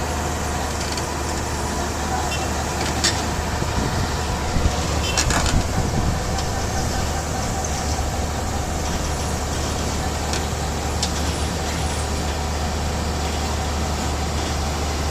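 Heavy diesel engine of an excavator running steadily at a constant pitch, with a few short knocks about three and five seconds in.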